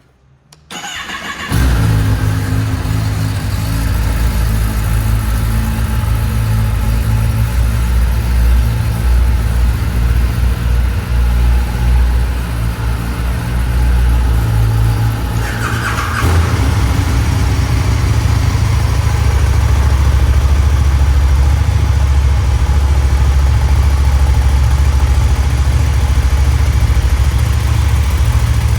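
Sport motorcycle engines on stock exhausts, a Kawasaki ZX-10R and a KTM 1290 Super Duke R: one engine is started about a second in and runs steadily near idle. About halfway through there is a brief starter-like whine, after which the engine sound is fuller and a little louder, as if a second bike has been started.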